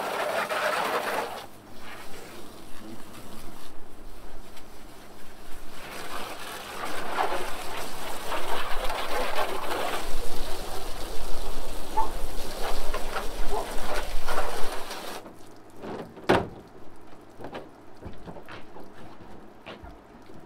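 Garden hose spraying water onto a pickup's ribbed bed liner, a noisy splashing that rises and falls as the jet moves and stops about fifteen seconds in. A sharp knock follows, then a few lighter knocks.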